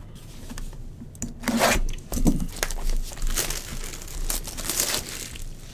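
Plastic shrink wrap being torn and crinkled off a sealed box of baseball cards, in a few rough rips.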